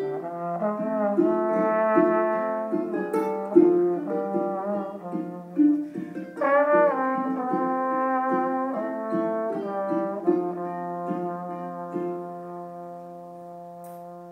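Trombone playing a slow melody of held notes, several sliding up into pitch, over a lower accompaniment, ending on a long sustained note that fades away.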